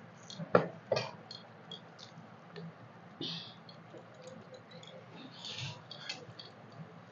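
Eating by hand from stainless steel plates: two sharp clinks of steel tableware about half a second and one second in, then small clicks and soft wet squelches of fingers mixing rice with dal, and chewing.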